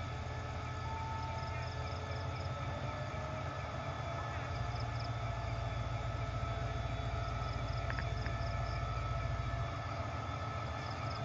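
QSY-class diesel-electric locomotive engine running as the train approaches, a low rumble that swells about halfway through and eases off near the end.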